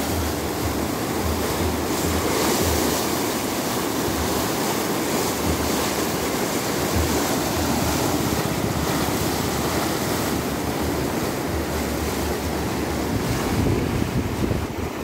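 A river in spate: fast, muddy floodwater rushing and churning, breaking in foamy waves against a concrete edge, a steady loud rush of water.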